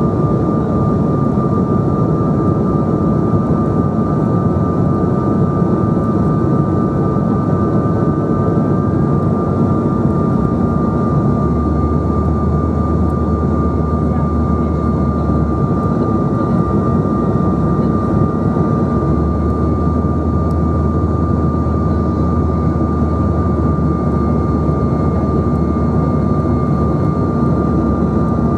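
Cabin noise inside a Bombardier CRJ900 regional jet in flight: a steady rush of airflow and its rear-mounted General Electric CF34 turbofan engines, with a steady high whine running through it. A low hum comes in twice, for several seconds each time.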